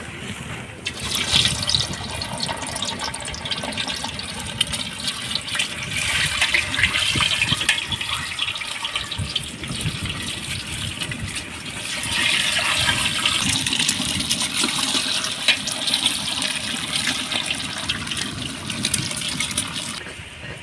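Hot cooking oil sizzling and spattering in a pan, a dense crackling hiss that starts suddenly about a second in and cuts off just before the end.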